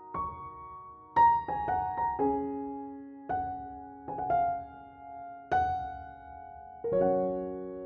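Background piano music: slow, gentle notes and chords, each struck and left to ring out.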